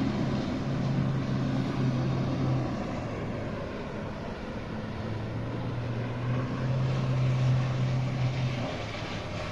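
A steady low engine drone over an even hiss of open air. The drone drops away for about two seconds in the middle, then comes back.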